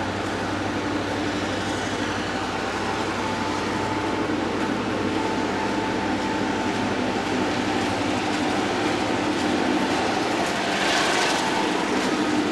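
Autorack freight cars rolling past on the rails: a steady rumble of steel wheels on track with faint ringing tones, and a brief louder rush of higher-pitched noise about eleven seconds in.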